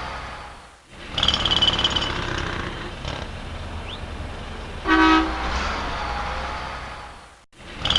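City street traffic ambience: a steady rumble of passing vehicles with a car horn honking once, briefly, about five seconds in, and a short high-pitched squeal about a second in. The sound fades out and restarts twice.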